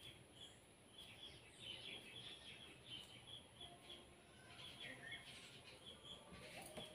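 Near silence with faint small-bird chirps repeating in the background throughout.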